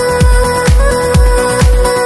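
Electronic trance music: a kick drum on every beat, about two a second, under a held synth note.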